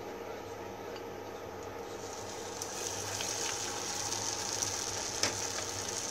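Hot oil sizzling in a pot as a breadcrumb-coated cheese stick deep-fries. The sizzle grows louder about halfway through, with a few sharp clicks, the loudest about five seconds in.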